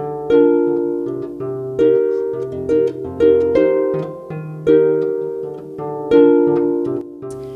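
Instrumental background music: harp-like plucked chords over a bass line, a fresh chord struck about every second and a half and each dying away before the next.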